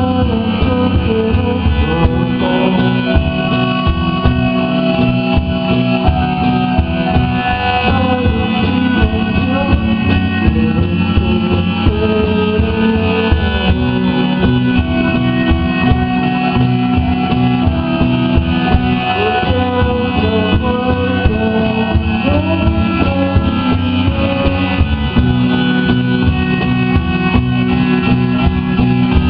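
A live rock band playing a song at full volume: electric guitar, bass, drums and synthesizer, with steady held bass notes under a busy beat.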